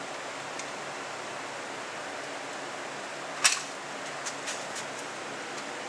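Steady background hiss, with one sharp click about three and a half seconds in and a few faint ticks after it.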